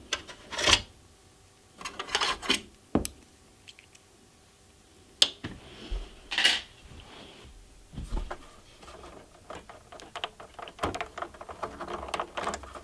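Scattered clicks, knocks and scrapes of hands working the sheet-metal chassis of an HP 54501A oscilloscope, pulling out the plastic retaining pins that hold its power supply. The small clicks come faster near the end.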